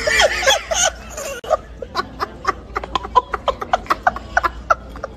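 A toddler laughing: a rapid string of short, even laughs after a longer vocal outburst in the first second.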